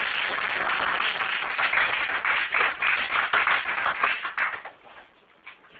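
Audience applause: many hands clapping, dense and steady, then thinning to a few scattered claps and fading out near the end.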